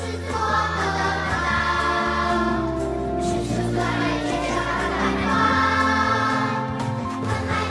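A group of children singing a song together over backing music.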